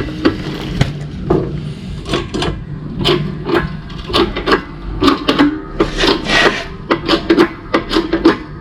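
Irregular knocking and scraping of hand tools working on a part, with many sharp knocks at uneven intervals and rubbing noise between them.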